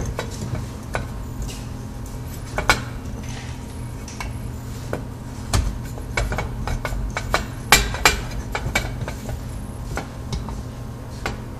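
Light bulb being screwed by hand into a recessed ceiling light's socket: irregular clicks and scrapes as the bulb knocks against the metal trim ring and turns in the socket, over a steady low hum.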